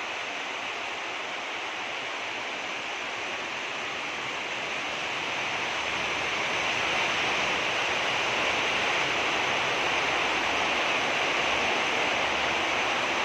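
Steady, even hiss of noise with no distinct events, growing somewhat louder about halfway through.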